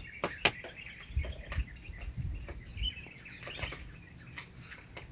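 Faint bird chirps with scattered short clicks and knocks, and a brief low rumble in the first half.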